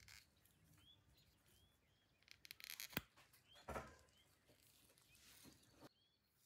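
A few sharp clicks and a short run of scraping from small parts being handled, the loudest click about three seconds in, with faint bird chirps repeating in the background.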